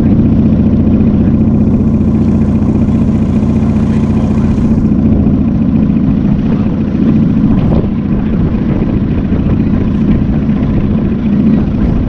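Outboard motor of an aluminium fishing boat running at a steady speed while the boat is underway, a loud constant engine hum without changes in pitch.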